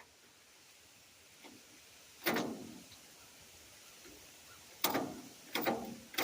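Sharp knocks, four in all: one about two seconds in, then three in quick succession near the end.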